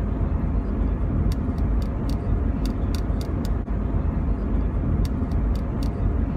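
Steady low rumble of a car's engine and road noise heard inside the cabin, with a quick light ticking running over it, about three to four ticks a second.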